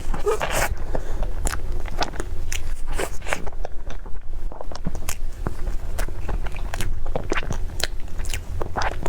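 Close-up eating sounds: a person biting into and chewing crisp food, with irregular crunchy clicks, over a steady low hum.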